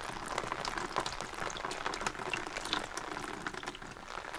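A thin stream of water pouring onto the waterproof Toray Dermizax stretch fabric of a winter suit: a continuous patter of small splashes and drips as the water beads up and runs off the surface instead of soaking in.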